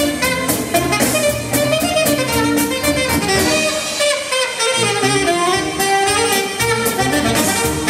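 Alto saxophone playing a lively polka melody over a backing of drums and bass with a steady beat. The bass drops out for about a second near the middle, then comes back in.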